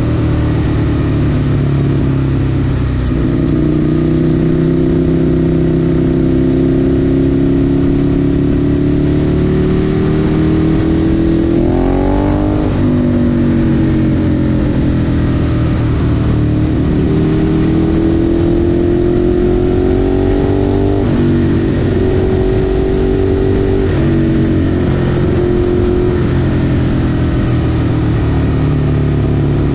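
Ducati 848's L-twin engine through an aftermarket GPR exhaust, pulling hard at highway speed under heavy wind and road noise. The revs climb slowly in each gear and drop sharply at a few gear changes, about twelve, twenty-one and twenty-four seconds in.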